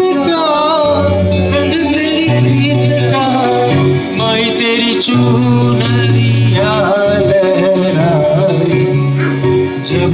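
A song with a singing voice over instrumental accompaniment and a steady bass line.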